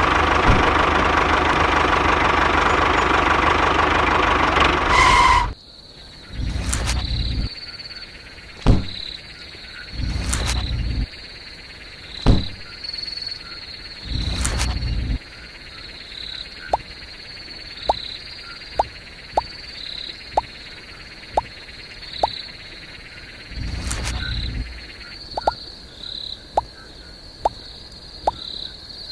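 A loud, dense noise for the first five seconds cuts off abruptly. Then a steady high insect trill runs on, broken by several short low rumbles about a second long, a few sharp knocks, and later a series of quick ticks about once a second.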